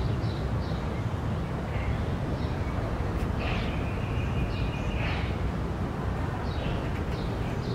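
An electric doorbell buzzes once as its button is pressed, a steady high tone lasting under two seconds, about halfway in. Birds chirp in short calls over a steady low outdoor rumble.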